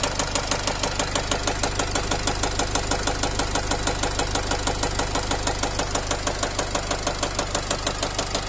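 Nissan X-Trail 2.0 dCi diesel (Renault-built) running with a loud, even knock, about five a second, over the engine note. The knock is a 'ta-ta-ta' that came on suddenly, with heavy fuel corrections and a smell of unburnt diesel, and the mechanic takes it for a piston hitting.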